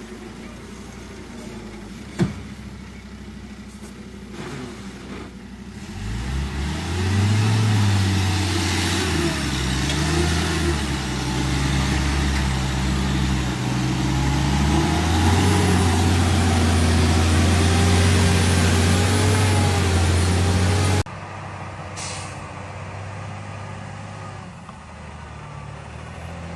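Heavy logging truck's diesel engine, first running quietly with a sharp click about two seconds in, then revving hard under load from about six seconds in, its pitch rising and falling. Near the end it drops suddenly to a quieter, steady running.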